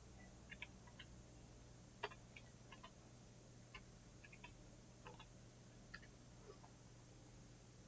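Faint, irregular computer keyboard key clicks over near-silent room tone with a low steady hum.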